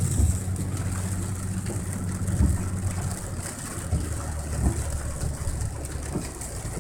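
Severe summer thunderstorm: a steady hiss of heavy rain over a continuous low rumble, with a few short low knocks.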